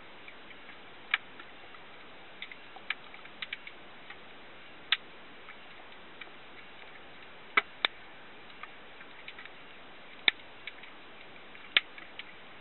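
Scattered sharp underwater clicks at irregular intervals, a handful of loud ones every couple of seconds among fainter ones, over a steady hiss.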